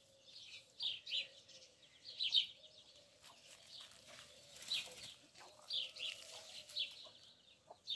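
Young chicks peeping quietly: short, high, falling chirps, one every second or so.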